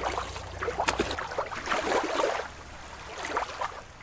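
Water splashing and sloshing, first as a toy is moved through shallow river water; about a second in the recording changes to a different one with a rushing splash of water.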